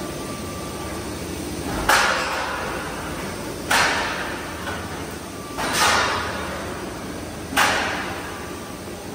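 Light-gauge steel roll forming machine running steadily, with four sharp press strokes about every two seconds, each trailing off over about a second.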